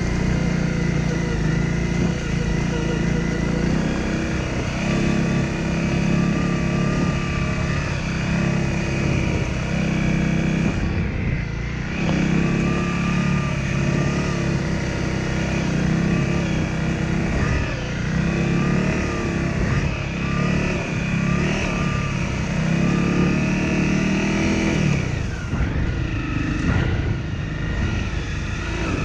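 Honda CRF250L's 250 cc single-cylinder four-stroke engine running under way, the throttle rising and falling; it eases off briefly about eleven seconds in and again near the end.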